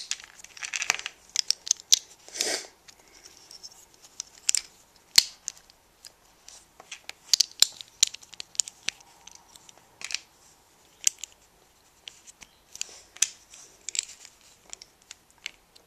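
LEGO plastic bricks handled and pressed together close to the microphone: irregular sharp clicks and snaps with short scraping rustles between them.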